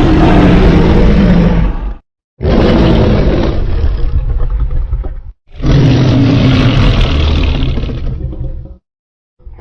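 Three custom-made Godzilla roar sound effects played one after another, each about two to three seconds long and separated by brief gaps of silence.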